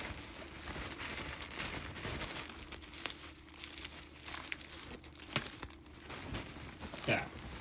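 Cloth dust bag of a Henry vacuum cleaner being handled and emptied out, with steady rustling and crinkling and a few sharp clicks about five and a half seconds in.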